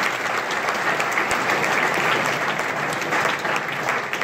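Audience applauding: a dense, steady patter of many hands clapping at the end of a talk.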